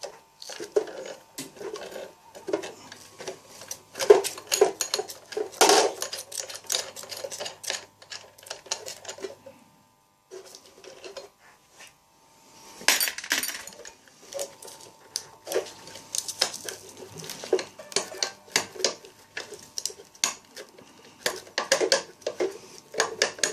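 Repeated metallic clicking and clinking of hand tools and small metal parts while nuts and bolts are worked off a dismantled water heater, with a quiet pause about ten seconds in.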